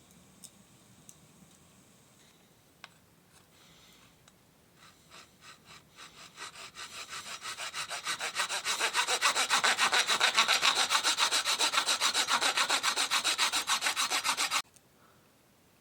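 Hand saw cutting through wood: a few light clicks, then saw strokes that start softly and build into a steady fast rhythm of about four to five strokes a second. The sawing stops abruptly near the end.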